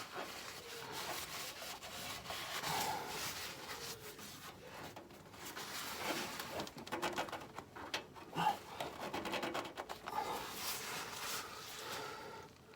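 Gloved hands gripping and twisting a car's spin-on oil filter, with irregular rubbing and scraping as the filter is forced tighter by hand.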